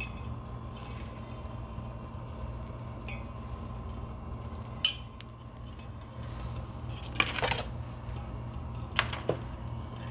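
Stainless steel inner pot of an Instant Pot being handled: a few light metallic clinks and knocks, one about five seconds in and a small cluster near the end, over a steady low hum.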